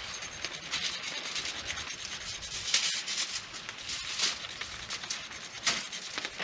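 Wasabi being grated on a small metal grater: repeated irregular rasping strokes, a few of them louder near the middle and one just before the end.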